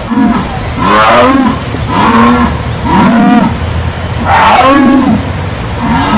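Jaguar calling in a run of short repeated roaring grunts, about one a second: the jaguar's sawing call.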